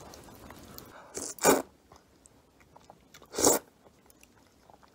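Two loud, short slurps of noodles from a bowl of cold soybean noodle soup (kongguksu), about two seconds apart, with faint chewing between them.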